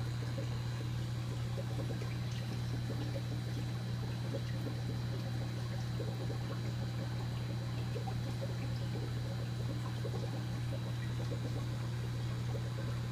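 Aquarium equipment running with a steady low hum, over a constant trickle and bubbling of water in the fish tank.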